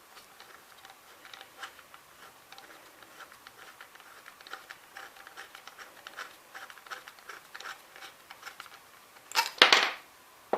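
Metal parts of a Ramset 122MD powder-actuated tool being handled during disassembly: a run of light clicks and scrapes, then a loud metallic clatter a little past nine seconds in.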